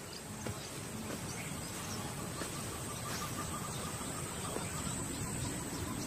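Savanna bush ambience: insects with a steady high-pitched buzz, and a faint rapid ticking call that comes in about two seconds in and fades out before the end, over a soft noisy background.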